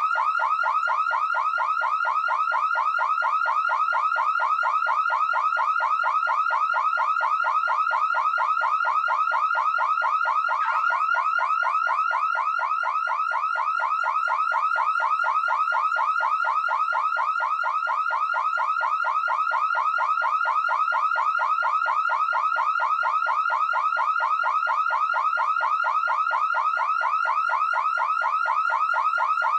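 Electronic alarm siren of the car- or home-alarm kind, sounding continuously as a fast, even run of short rising whoops, several a second. There is a brief hitch in the rhythm about a third of the way through.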